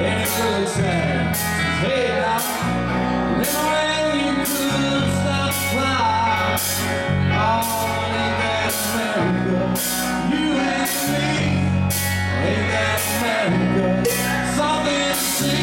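Live rock band playing: two electric guitars and an electric bass over drums, with cymbal strokes about twice a second, and a voice singing over them.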